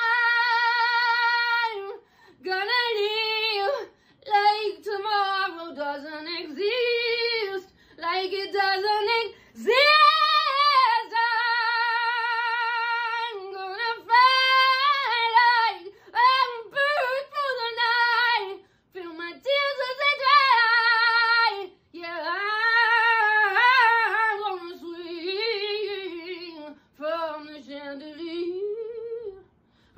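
A woman singing solo without accompaniment, in phrases with short breaths between them. She holds some long notes with vibrato, near the start and about eleven seconds in.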